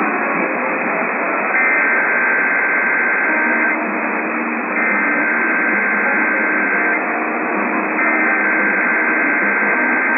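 Emergency Alert System SAME header received over the radio: three bursts of warbling two-tone digital data, each about two seconds long and about a second apart, over steady static hiss. The header bursts open an EAS test alert and carry its coded message.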